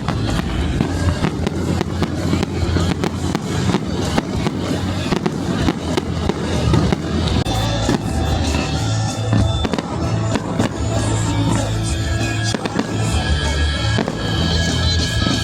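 Fireworks popping and crackling in quick succession, with music playing along.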